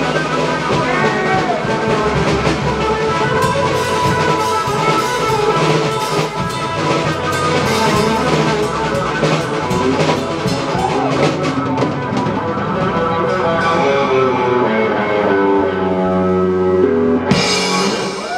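Live rock band: a Stratocaster-style electric guitar plays lead over a drum kit, with many sharp drum hits. Near the end the guitar settles into held notes, then a sudden cymbal crash.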